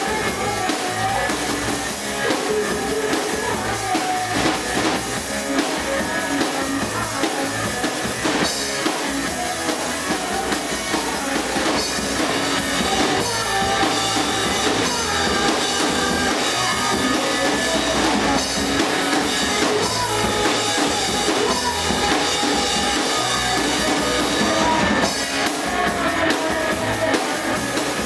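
Small rock band playing live in a room: drum kit and electric guitar, with a woman singing into the microphone.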